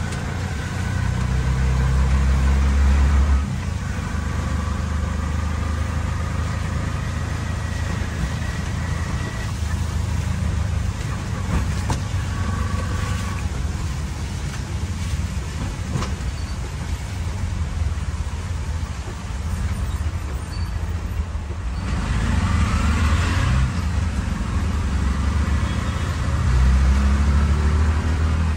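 Auto-rickshaw ride in traffic: the rickshaw's small engine runs with a steady low rumble, swelling about a second in and again near the end, over road and traffic noise. A few short higher tones from the traffic come and go.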